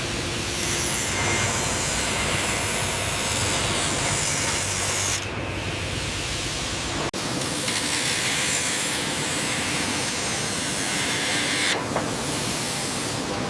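Steady loud hissing noise, like machinery running. It changes character abruptly about five, seven and twelve seconds in, like cuts between shots.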